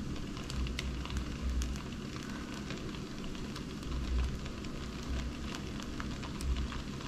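Gluten-free pizza crust batter sizzling and crackling in a hot nonstick skillet as a wooden spoon spreads it, with many small pops and, now and then, soft low thumps of the spoon working the batter.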